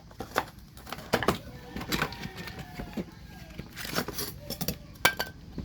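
Scattered clicks and knocks of a new car battery and its packaging being opened and handled.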